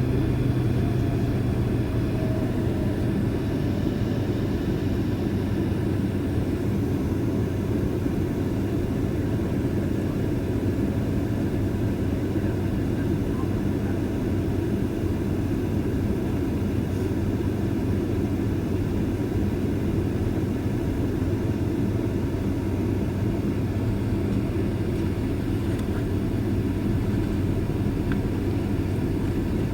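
Boeing 767-323ER's twin turbofan engines running at low power during taxi: a steady low hum with a few held low tones.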